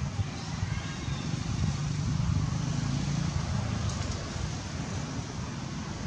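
Steady outdoor background noise: a low rumble with a fainter hiss above it and no distinct events.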